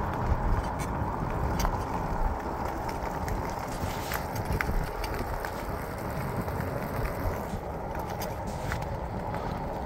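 Wind buffeting the microphone of a bicycle rider, a steady low fluctuating noise, mixed with the tyres running on pavement and scattered light clicks and rattles from the bike.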